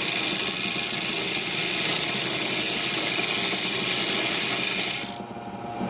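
Wood lathe running while a turning tool cuts into the spinning wood, a steady loud hiss of shavings being thrown off. About five seconds in the cutting stops and only the lathe's motor hum remains.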